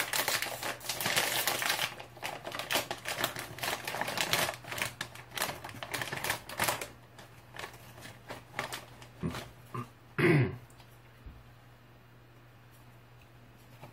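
A large plastic snack bag crinkling and crackling in the hands as it is pulled open. The crackle is dense for the first several seconds, then thins to occasional rustles. About ten seconds in there is one short vocal sound.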